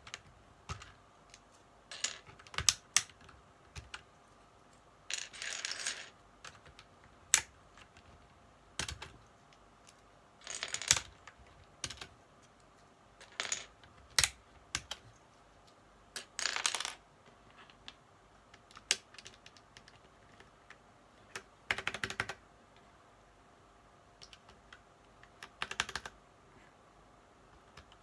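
Plastic keys of an Ajazz mechanical keyboard clicking: scattered single clacks and short clattering bursts, with pauses of a second or more between them.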